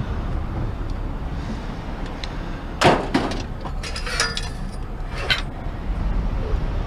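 Scrap metal being handled: one sharp knock about three seconds in, then several clinks and clatters with a ringing edge, over a steady low rumble.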